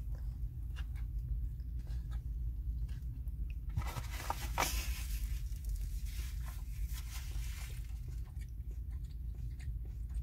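A person chewing a mouthful of burger close to the microphone, with small mouth clicks, and a brief paper-napkin rustle about four seconds in, over a steady low hum.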